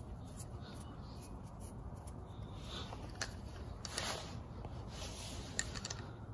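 Small Phillips screwdriver tip turning tiny screws in a fingerboard deck: faint scraping, with a few light clicks and handling sounds in the second half.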